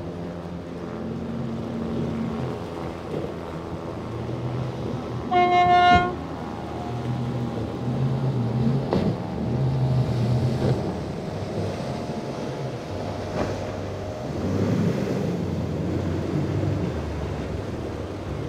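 Boat engines running over the wash of rough water, with one short, loud horn blast about five seconds in.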